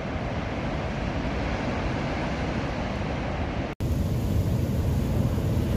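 Heavy surf breaking on a beach, a steady wash of noise mixed with wind buffeting the microphone. A momentary dropout comes about four seconds in, after which the low wind rumble is louder.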